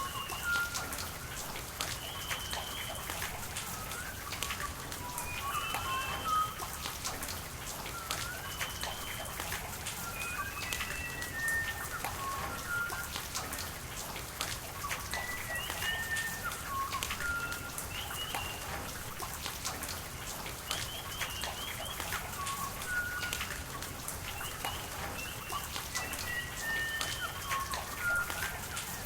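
Steady rain with the hiss of running water and many separate drop hits, while a songbird sings short whistled phrases that repeat every few seconds.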